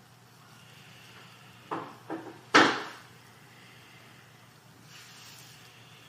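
Three sudden knocks in quick succession less than two seconds in, the third the loudest with a short ringing tail, over a faint steady room hum.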